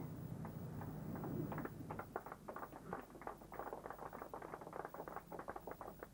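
Small crowd clapping: scattered hand claps that start about two seconds in and carry on thickly, after a low steady hum at the start.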